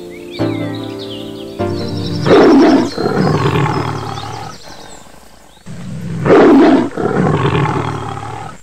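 A tiger roars twice, about four seconds apart. Each roar starts as a loud blast and tails off into a fading growl, over background music.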